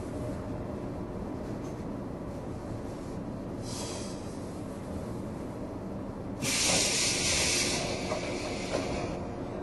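Compressed air hissing from the pneumatic system of a JR 115 series electric train car, heard from inside the car over its steady low hum: a short hiss about four seconds in, then a louder hiss lasting about two and a half seconds.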